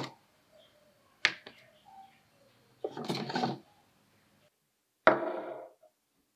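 A ceramic bowl and a glass jar are lifted out of a wooden crate and set down on a wooden tabletop. There is a sharp knock about a second in, a short clatter around three seconds, and a thud with a brief ring about five seconds in.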